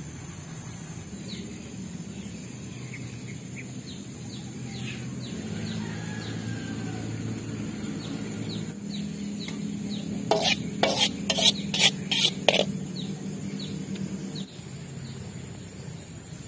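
Metal spatula stirring and scraping in a wok, with a quick run of about six sharp metal knocks near the middle, as from the spatula tapped against the pan. Short high bird chirps repeat throughout.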